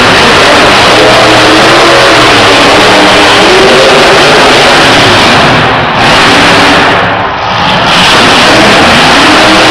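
Grave Digger monster truck's supercharged V8 revving hard and very loud, its pitch rising and falling with the throttle. The engine note dips briefly twice, a little past halfway through.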